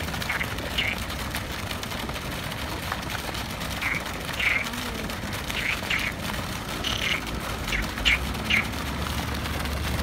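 Frogs calling from the pond: a series of short, quacking croaks at irregular intervals, coming more often and louder in the second half.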